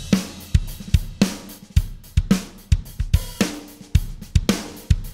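Sampled drum kit (Steven Slate Drums 5) playing a steady groove of kick, snare, hi-hat and cymbals, run through an SSL-style VCA bus compressor with its THD saturation switched on, which adds grit and richness to the kit.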